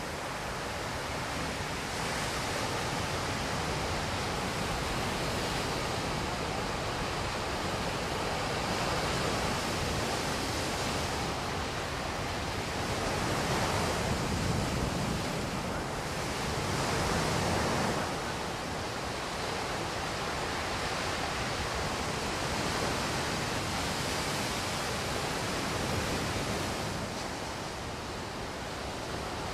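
Heavy ocean surf from a tropical-storm swell: a continuous rush of breaking waves and white water, swelling louder twice in the middle.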